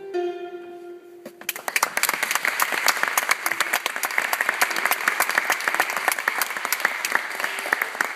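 The last notes of a harp ring out for about a second. Then applause starts and keeps going, loud and even.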